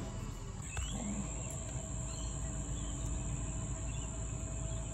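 Outdoor ambience: a steady high-pitched insect drone over a low rumble, with a few faint bird chirps.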